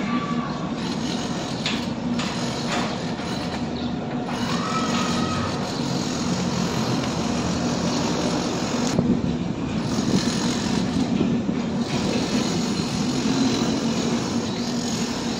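Steady engine drone: a constant low hum under a wash of mechanical noise.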